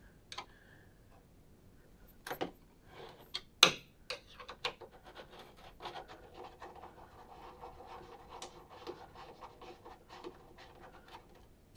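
Long screwdriver turning a screw out of the underside of a stringing machine's base. A few sharp metal clicks and taps, the loudest at about three and a half seconds in, then a long run of small quick ticks with faint rubbing as the screw turns.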